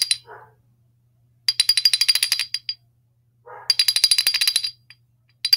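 Telephone ringing: high, rapidly trilling rings about a second long, with about a second of silence between them, repeating.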